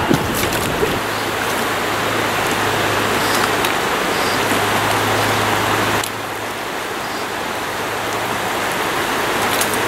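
Steady rush of shallow stream water running over rocks, an even hiss that dips slightly about six seconds in.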